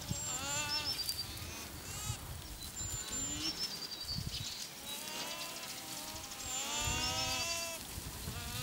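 Alpacas humming: several pitched calls that rise and fall, the longest drawn out near the end, with songbirds whistling short high notes in the background.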